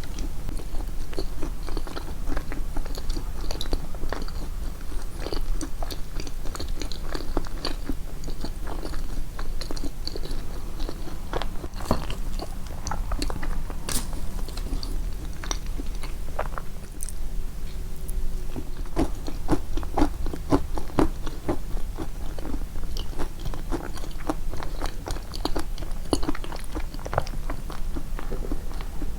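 Close-miked chewing of a soft walnut-and-banana yoghurt cake: a steady run of irregular wet mouth clicks and smacks, with light crunches from the walnut pieces.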